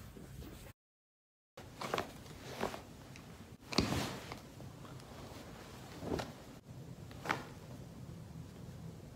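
Joints cracking during a hands-on neck adjustment: a handful of short, sudden cracks and pops with handling noise between them, the loudest about four seconds in. A moment of dead silence comes shortly before the first one.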